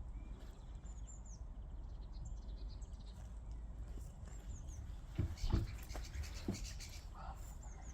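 Faint small birds chirping every so often over a low steady outdoor rumble, with a few soft knocks or scrapes a little over five seconds in and once more about a second later.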